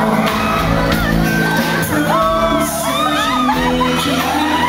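Live band playing with electric guitar, bass, drums and keyboard, while audience members whoop and cheer over the music a couple of times.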